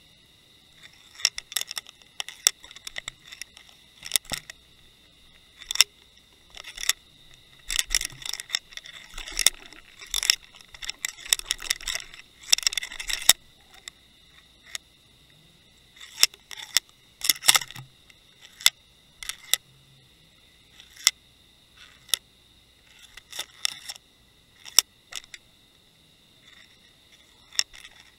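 Sharp irregular clicks and knocks, some single and some in quick rattling clusters, picked up through the housing of an underwater camera rig drifting over the sea floor.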